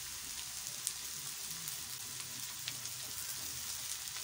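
Chopped onion and green capsicum sizzling in hot oil in a kadai: a steady hiss with scattered small crackles.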